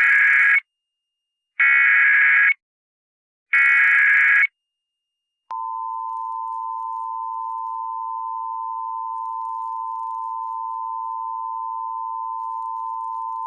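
Emergency Alert System test signal: three bursts of digital SAME header data tones, each about a second long with a gap of silence between them. About five and a half seconds in, the steady attention tone begins and holds.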